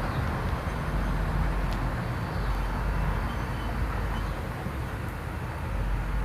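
A truck engine running with a steady low rumble, amid outdoor traffic noise.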